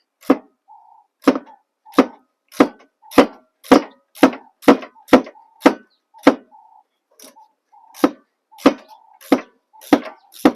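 Hand ratchet with a hex bit working a brake caliper bolt back and forth, giving a sharp click on each stroke, about two a second.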